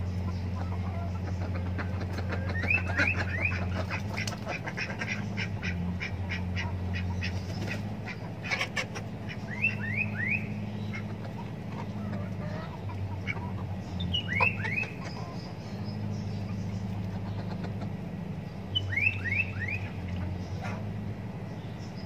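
Domestic ducks calling in short quick groups of three or four falling calls, several times over, with a run of quick clicks in the first half. A steady low hum runs underneath.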